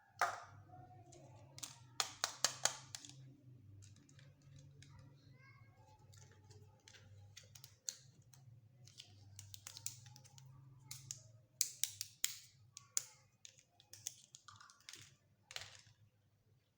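Small plastic toy-kitchen pieces being handled, set down and clicked into place: irregular sharp clicks and taps, some in quick clusters, over a low steady hum that stops about two-thirds of the way through.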